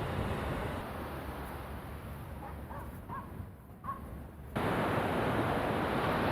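Steady wind and surf noise on an open beach, with three or four short bird calls in the middle. About four and a half seconds in, the noise jumps suddenly louder.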